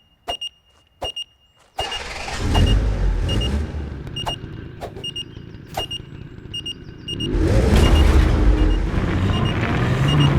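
Electronic beeping repeating in steady pairs, the signal of a phone app sending a distress call. A loud low rumble comes in about two seconds in and swells again near the end.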